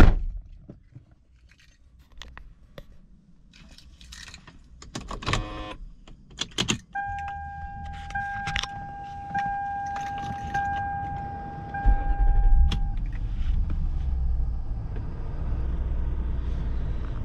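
Keys jingling and clicking at the ignition, then a car's electronic chime sounding in a steady repeating pattern for several seconds. About twelve seconds in, the 2002 Lexus SC430's 4.3-litre V8 starts and settles into a steady idle.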